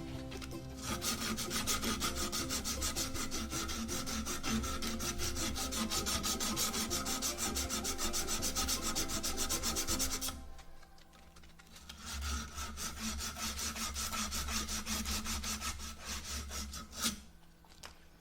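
Abrasive scrubbing the end of a half-inch copper pipe to clean it before soldering: fast, even back-and-forth rubbing strokes. The strokes stop briefly about ten seconds in, start again, and end with a sharp click near the end.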